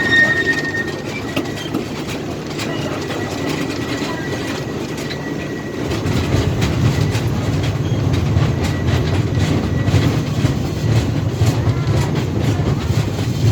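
Tour train running, heard from aboard: wheels clacking over the rail joints under a steady rumble that gets louder about six seconds in. A thin high whine fades away over the first few seconds.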